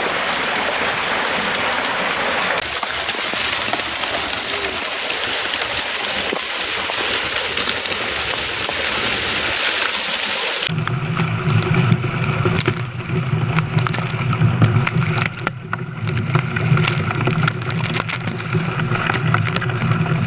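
Water rushing out of a fish-stocking truck's tank through its discharge pipe and splashing into the lake as trout are released. About ten seconds in, a steady low hum joins, with many quick sharp splashes over it.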